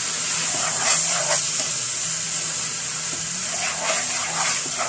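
Chopped cabbage, spinach and carrots sizzling with a steady hiss as they are sautéed in a pan on a gas burner, with a few soft scrapes of stirring at about a second in and again near the end.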